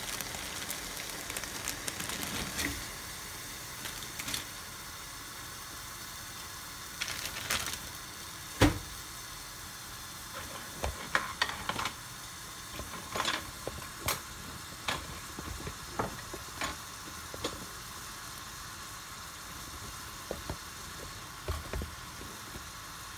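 Water boiling in a saucepan on the stove, a steady bubbling hiss, with scattered sharp clicks and knocks, the loudest about eight and a half seconds in.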